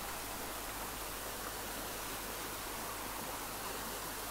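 Steady hiss-like background noise with a faint low electrical hum, unchanging throughout; no speech.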